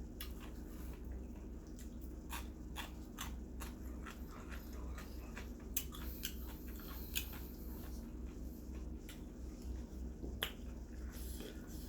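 Close-up eating of roast chicken: irregular wet mouth clicks and smacks while chewing, over a low steady hum.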